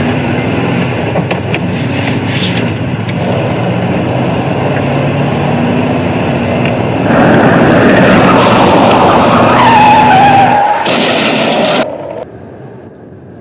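Car sound effects: an engine runs steadily, then gets louder and noisier about seven seconds in, with a falling tyre screech near ten seconds and a hissing burst just after. It drops away sharply near the end.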